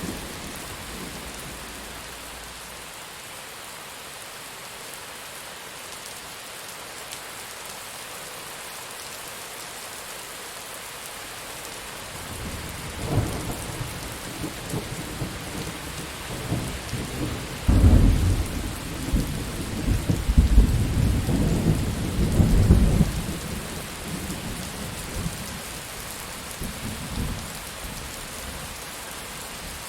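Steady rain with a thunderstorm: a roll of thunder begins rumbling about twelve seconds in, grows loudest about halfway through with several deep cracks and rolls, then fades, with a smaller rumble near the end.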